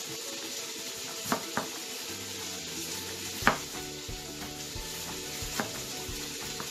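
Kitchen knife slicing through a peeled raw potato and striking a plastic cutting board: a few sharp, separate knife strokes, the loudest about halfway through, over a steady hiss.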